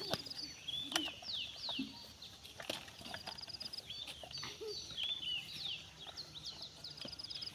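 Small birds chirping and trilling: short high whistles that slide down in pitch, mixed with fast runs of repeated high notes, with a few faint knocks.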